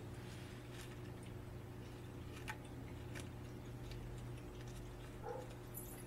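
A few faint light clicks and ticks from small objects being handled, over a steady low hum.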